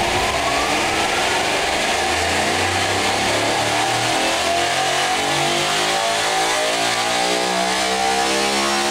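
Big block V8 driven by a Spintron motor rig, whining in a steadily rising pitch as its speed climbs, then levelling off near the end. It is a test spin of the valvetrain on lighter valve springs, to check for valve bounce.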